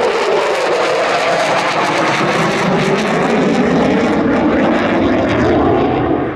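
Polish Air Force F-16 jet with its Pratt & Whitney F100 afterburning turbofan, a loud, steady jet roar full of crackle.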